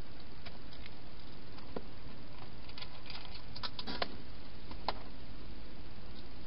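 Wild hedgehog eating from the dishes inside a plastic feeding box: irregular sharp clicks and crunches, bunching together about three and a half seconds in, over a steady hiss.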